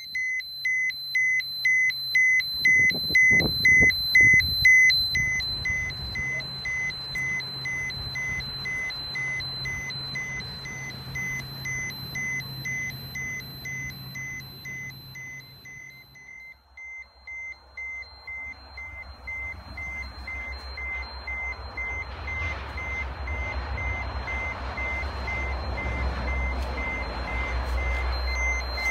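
Handheld dosimeter (Geiger counter) beeping its radiation alarm: a high, evenly repeated beep a few times a second. A low rumble rises under the beeps in the second half.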